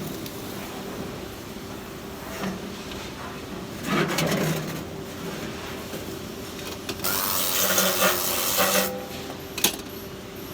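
Welding shop with a steady machine hum. A brief clatter comes about four seconds in, then a hissing, crackling burst lasting about two seconds near the end, like a short flux-core arc tack on stainless steel, followed by a sharp click.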